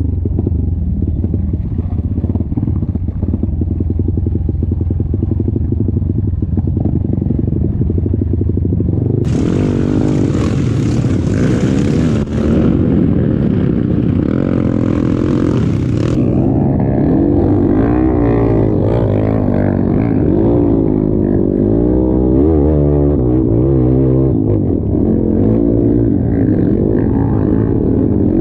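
Dirt bike engine running under the rider over muddy trail ruts, steady at first. From about nine to sixteen seconds a loud hiss joins in. After that the throttle opens and closes repeatedly, so the engine note rises and falls in quick swells.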